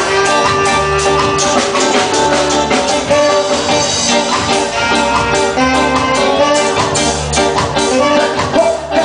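Live band playing a reggae-style tune, with drum kit, guitars and trumpet.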